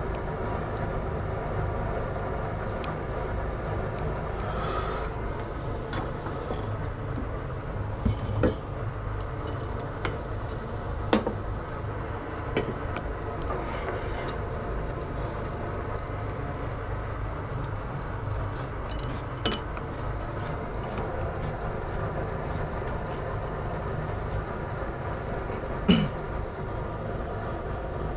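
Kitchen cooking sounds: a steady low noise with a handful of sharp clinks of utensils against dishes or pans, the loudest near the end.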